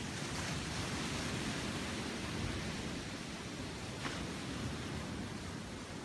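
Sea waves washing onto the shore: a steady rush of surf that swells about half a second in and eases after a couple of seconds.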